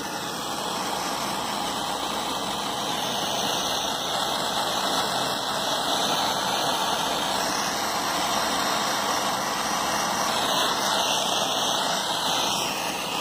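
Handheld torch flame hissing steadily as it is played over heat-shrink tubing on a wire splice to shrink it.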